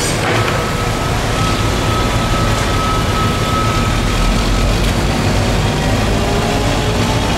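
Heavy construction machinery running steadily, a constant engine hum with a thin high whine that holds for about four seconds and then stops.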